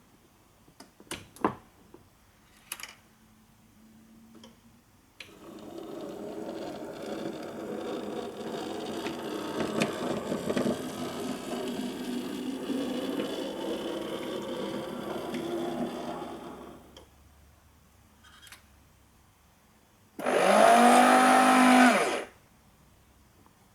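LEMACO electric point motor driving a model railway turnout: a few light clicks, then a noisy mechanical run of about eleven seconds, and later a louder two-second whine whose pitch rises and falls.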